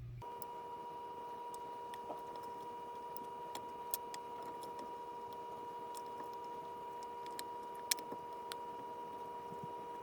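A faint steady hum of a few fixed tones, with a few soft clicks about 4 and 8 seconds in.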